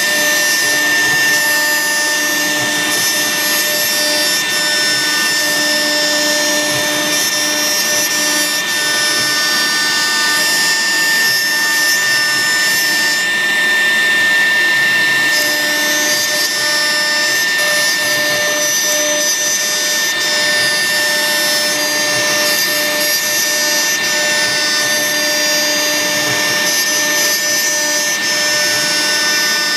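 Maxicam 0609B CNC router spindle running with a steady high whine as a 4 mm Polishcut cutter mills 10 mm polycarbonate sheet. The higher hiss of the cut swells and fades as the cutter moves along the profile.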